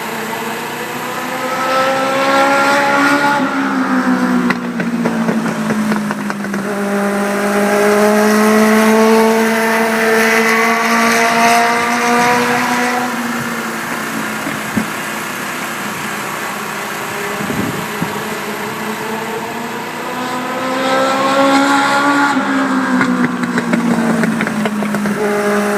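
Race car engine running laps at speed, its pitch climbing as it accelerates and dropping each time it lifts off, with a couple of brief knocks in the middle.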